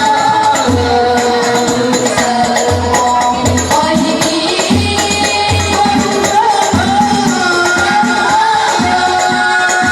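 Banjari ensemble performing: voices singing a sholawat melody in unison, with long, gliding held notes, over a regular beat of low-pitched hand-struck frame drums (terbang).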